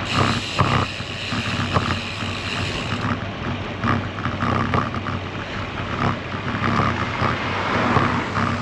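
Wind buffeting a GoPro's microphone on a moving bicycle: a steady rush with low rumble and occasional gusty thumps, along with road noise from the ride.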